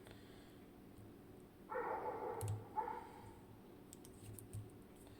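An Abloy Exec disc-lock cutaway being handled: light metallic clicks and two short scraping sounds, about two and three seconds in, from its discs and metal parts moving.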